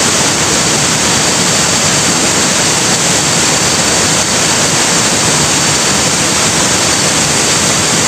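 Waterfall: a loud, steady rush of falling water, unchanging throughout.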